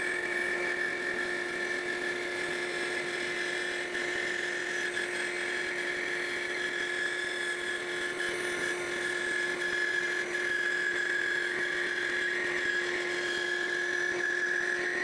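Band saw and dust collector running together with a steady hum and a higher whine, while the blade cuts through a wooden board pushed along on a sliding jig.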